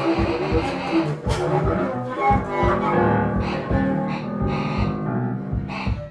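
Free-improvised music with a bowed cello playing held and sliding notes over irregular low knocking strokes.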